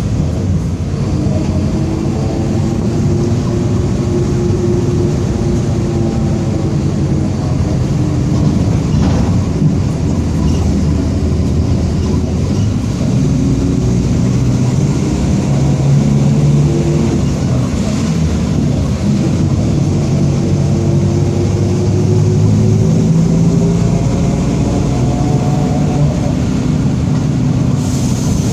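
Mercedes-Benz OF-1722M city bus under way: the drivetrain runs with a growling rear differential, a pitched whine that rises and falls several times as the bus speeds up and slows, over the engine's steady rumble.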